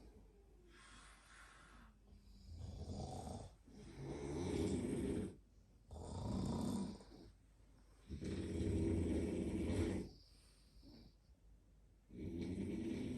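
Snoring from a sleeper: about five snoring breaths, each one to two seconds long, with short quieter pauses between them.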